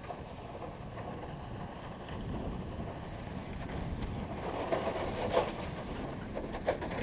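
SUV with a V-blade snowplow driving through deep snow, its engine running and the blade pushing and spraying snow, with wind buffeting the microphone. It grows a little louder about halfway through as the truck comes closer.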